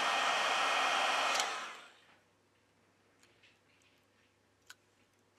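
Heat gun blowing hot air, a steady rushing hiss that stops with a click about a second and a half in and dies away over half a second. A few faint light clicks follow, with one sharper click near the end.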